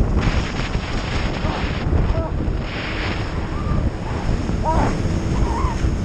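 Wind buffeting the microphone of an action camera on a towable tube skimming across a boat's wake at speed, a steady heavy rumble, with water spray hissing against the tube in short spells.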